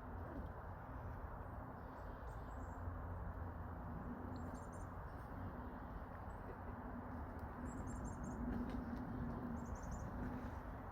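Faint clusters of quick, high-pitched chirps from a small bird, heard four times over a steady background hiss and low hum.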